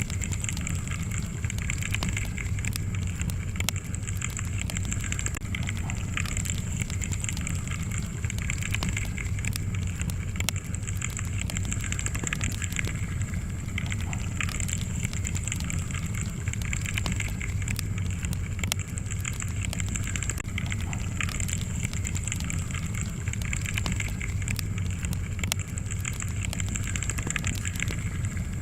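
Fire burning in a fireplace: a steady low rumble with frequent small crackles and pops throughout.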